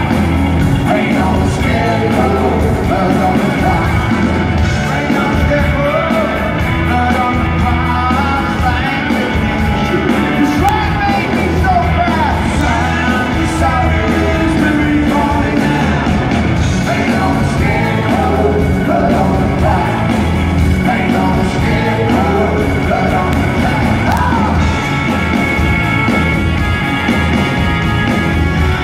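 Live rock band playing at full volume, with drums, electric guitars and fiddle and vocals over it, heard from within the audience.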